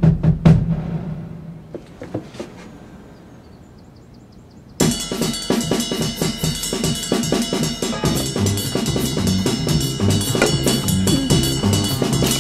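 Music soundtrack. A few drum hits die away into a quiet stretch, then about five seconds in a full band with a drum kit and pulsing bass comes in suddenly and keeps going.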